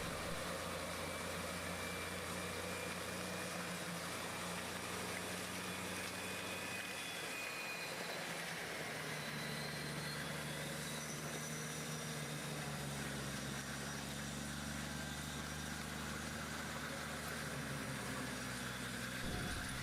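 Large engine running steadily at low revs, its low hum shifting in pitch about nine seconds in.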